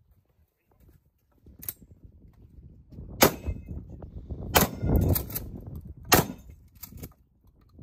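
Shotgun firing three loud shots, roughly a second and a half apart, with lighter sharp clacks in between. A low rumble of wind on the microphone runs underneath.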